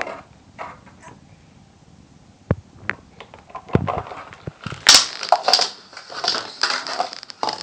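Hiccups heard up close: short, sharp single sounds a second or so apart. From about five seconds in comes a louder stretch of close, crackly noise.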